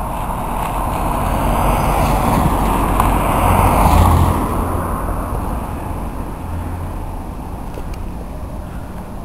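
A car passing through standing floodwater on a road. It grows louder to a peak about four seconds in, then fades away.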